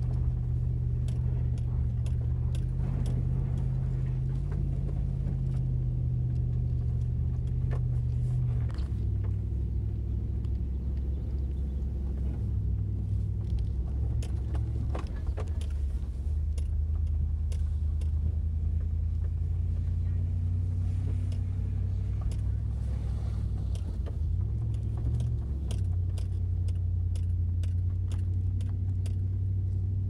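First-generation Toyota Tundra pickup on studded tyres driving slowly, heard from inside the cab: a steady low engine and road drone whose pitch steps down about nine seconds in and shifts a few more times, with scattered light clicks throughout.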